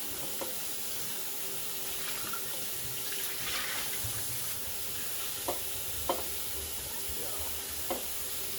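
Water running from a tap into a sink as a cleaned fish is rinsed under it, with three short knocks in the second half.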